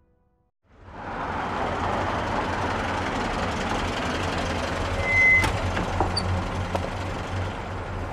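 Steady vehicle-traffic background noise with a low hum, starting about a second in, with one short high beep a little after five seconds and a few faint clicks.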